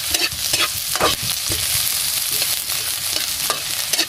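Chopped onion, garlic and ginger sizzling in a hot oiled wok, with a metal spoon scraping and clicking against the pan as they are stirred in irregular strokes.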